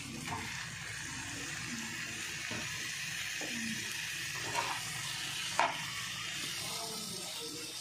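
Raw chicken pieces sizzling in hot oil with fried onions and masala in a frying pan, a steady hiss. Two sharp clicks sound about four and a half and five and a half seconds in, the second the louder.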